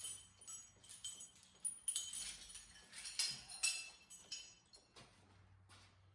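Light, irregular metallic clinks and rattles of an engine hoist's chain and hooks being handled, busiest around the middle and dying down near the end.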